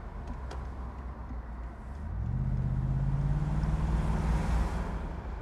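Car engine pulling away, its pitch rising about two seconds in and then holding steady under acceleration, over a low road-and-tyre rumble. The car is a BMW 6 Series convertible.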